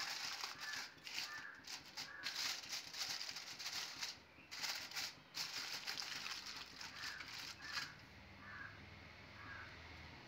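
Aluminium foil crinkling and rustling as it is pressed down and crimped around the rim of a cake pan, in quick irregular bursts that die away about eight seconds in.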